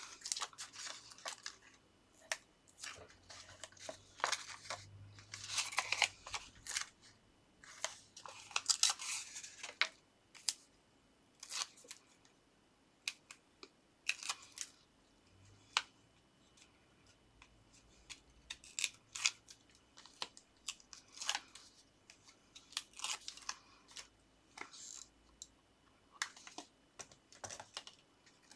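Hands working with paper and card: intermittent rustling and sliding swishes with many small sharp clicks and taps, as foam pads are peeled from their backing and stuck onto the back of a paper topper.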